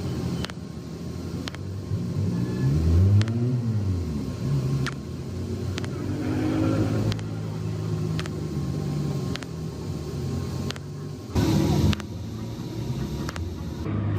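An engine running, its pitch rising and falling once about three seconds in, with a short, loud burst of hiss near the end.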